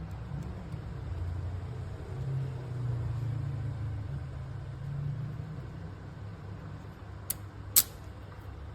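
Low rumble of a car heard inside the cabin, swelling in the middle, then two sharp clicks about half a second apart near the end, the second one louder.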